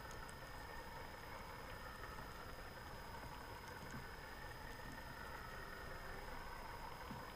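Faint, steady underwater noise picked up by a camera over a seagrass bed: an even hiss with a constant high whine and a few faint scattered clicks.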